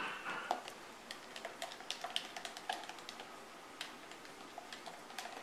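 Black plastic spoon clicking and scraping against the inside of a clear plastic cup while stirring glue, water and yellow food colouring, a few irregular clicks a second, with a louder knock about half a second in.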